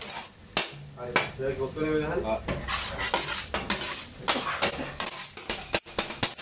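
Kottu roti being chopped and tossed with two flat metal kottu blades on a hot iron griddle: irregular metal clanks of the blades striking the griddle over a steady frying sizzle.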